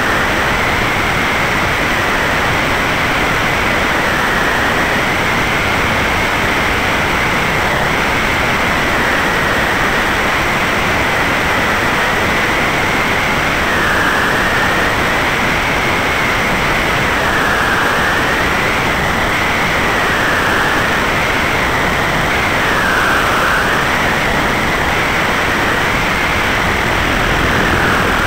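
Steady rush of airflow over a small tail-mounted camera, mixed with the Van's RV-8's engine and propeller on landing approach. A high whine runs through it and dips in pitch several times in the second half.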